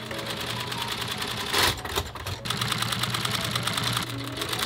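Industrial leather sewing machine with a roller presser foot stitching a leather boot upper, a fast even run of needle strokes that pauses briefly in the middle and stops near the end. A short loud burst of noise comes about a second and a half in, and another right at the end.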